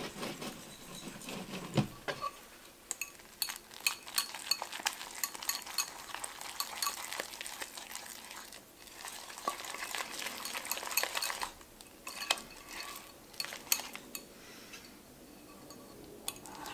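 Metal balloon whisk beating raw eggs and grated Parmesan in a glass bowl: a wet stirring sound with quick, irregular clicks of the wires against the glass, as the mixture is worked into a thick carbonara egg-and-cheese paste.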